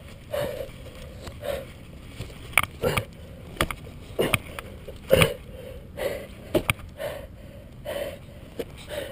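A person crawling on hands and knees over grass: hands thump and brush into the turf, with sharp knocks of a body-worn camera and short puffs of rough breathing about once a second. Near the end, hands slap onto a concrete parking curb.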